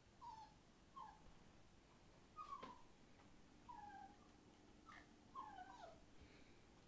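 Entlebucher Mountain Dog puppies whining: a string of about eight short, faint, squeaky calls, each falling in pitch.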